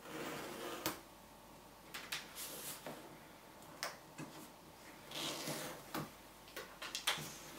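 Fingers scratching and picking at the sealed end of an Apple Watch's cardboard retail box, starting to open it. Faint short scrapes mixed with scattered sharp clicks.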